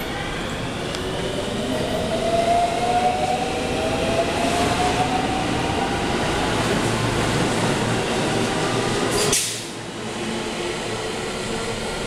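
Electric commuter train pulling along the platform, its traction motors giving a rising whine as it speeds up over the rumble of its wheels on the rails. About nine seconds in, the sound cuts off suddenly to quieter station background.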